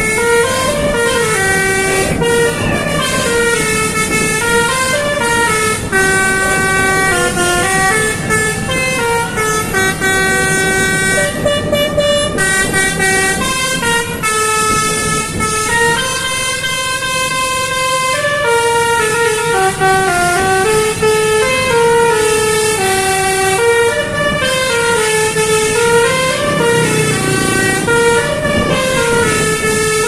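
Basuri telolet multi-tone bus horn playing a koplo melody, its notes stepping up and down one after another without a break.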